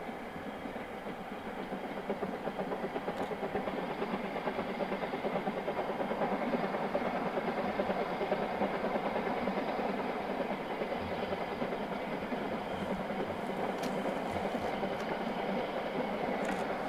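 Narrow-gauge steam locomotive working a train uphill, its exhaust coming as a rapid, steady chuffing that grows a little louder about two seconds in.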